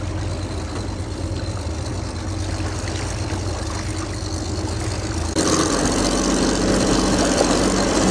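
A small motorboat's outboard motor runs slowly with a steady low hum. About five seconds in the sound switches abruptly to the motor running faster and louder, with water and wind rushing.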